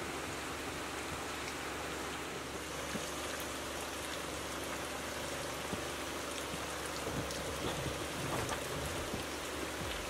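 Steady rain falling on trees and a puddled dirt yard, with a few separate drop ticks standing out in the second half.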